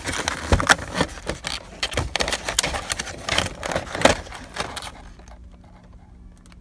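Clear plastic bag crinkling and rustling, with scraping against cardboard, as bagged action figures are pulled out of a cardboard box. The handling stops about five seconds in, leaving only a faint steady hum.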